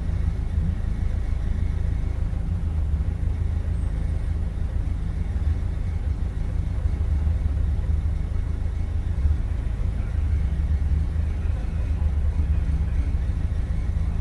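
BMW Compact race car's engine idling steadily, a low rumble heard from inside the cabin.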